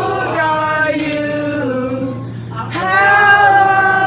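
Singing: long held notes that glide up and down, with a short break about halfway through.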